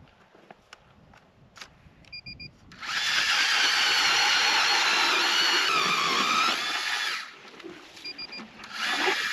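Powered ice auger drilling a hole through lake ice: a loud, high motor whine that runs about four seconds, its pitch sagging under load toward the end, then starts again near the end. Each run is preceded by three short beeps.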